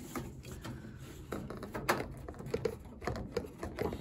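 Scattered clicks and light knocks of hands working inside a spin dryer's cabinet, with one sharper click about two seconds in.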